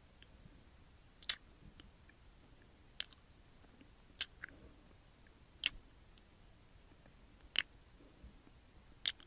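Close-miked kisses from a woman's lips: six short wet smacks, one about every second and a half.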